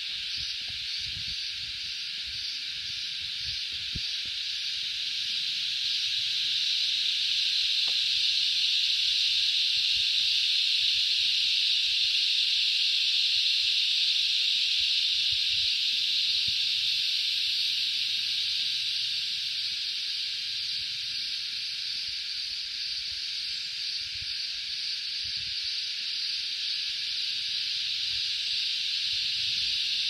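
A chorus of cicadas: a steady, high-pitched buzzing drone that swells louder after a few seconds and eases slightly later on. Faint low thumps run under it.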